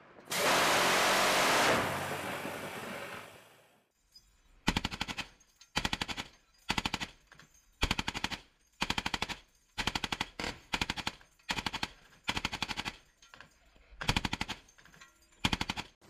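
A Phalanx CIWS rotary cannon fires one continuous burst of about a second and a half, its sound dying away over the next two seconds. Then a mounted M2 .50-calibre heavy machine gun fires about a dozen short bursts of a few rounds each, roughly one burst a second.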